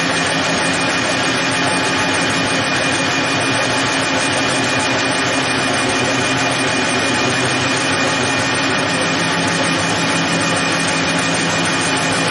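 Metal lathe running under power while its tool takes a facing cut across a steel disc: a steady machine hum and gear whine mixed with cutting noise.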